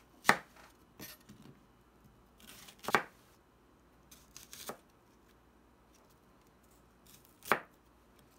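Kitchen knife slicing an onion into wedges on a plastic cutting board: crisp, separate cuts, each ending in a knock of the blade on the board. Three loud strokes come near the start, about three seconds in and near the end, with softer cuts between.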